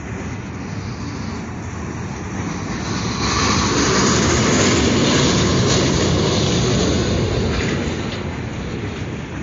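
Freight train of tank cars rolling past close by, its steel wheels running on the rails. The noise grows louder about three seconds in and eases off near the end.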